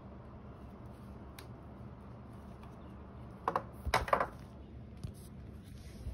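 Handling noise from a small bendy-legged gorillapod tripod being moved about on a desk: a single click, then a short cluster of sharp clicks and rustles about three and a half seconds in, and a small knock a second later, over a low steady hum.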